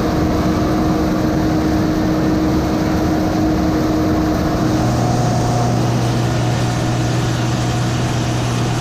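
Rotary combine harvester running steadily while harvesting corn, heard from inside the cab as a constant drone with steady hum tones; a deeper hum comes up about halfway through as a higher tone fades. The concaves are probably plugged, but the machine keeps pushing through.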